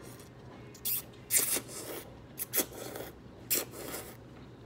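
Close-up eating sounds: about six short, noisy slurps and mouth noises at irregular intervals.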